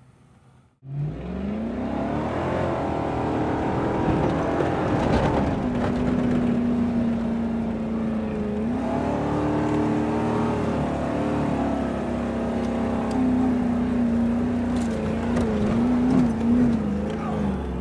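Four-wheel-drive engine running hard on a sandy off-road track, its revs rising and falling with the throttle. The sound starts abruptly about a second in.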